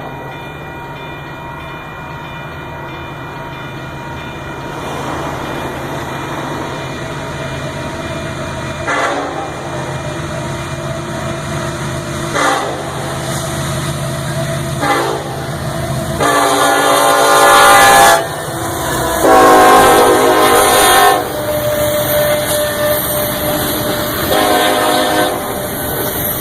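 Union Pacific locomotive's multi-chime air horn played in a series of blasts for onlookers, a horn show. It gives three short toots, then two long loud blasts and a shorter one near the end. Under the horn runs the steady rumble of the train.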